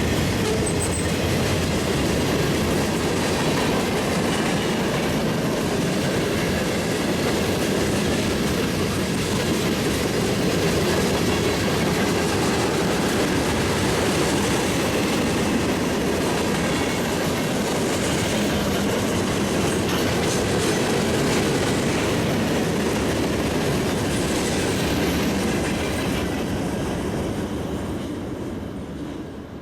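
Freight train cars rolling past, a steady rumble with wheel clatter on the rails, fading away over the last few seconds.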